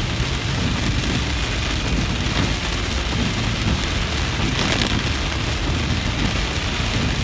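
Heavy rain pelting a moving car's roof and windshield, heard from inside the cabin, over a steady low rumble of tyres on the wet road. A brief louder rush of water comes about four and a half seconds in.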